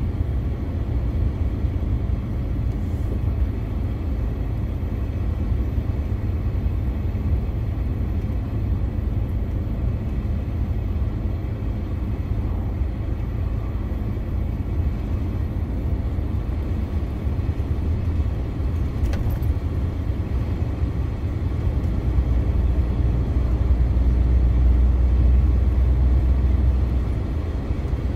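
A DAF CF 480 truck's diesel engine and road noise while driving, a steady low rumble. A deeper, louder rumble swells for several seconds near the end, then eases.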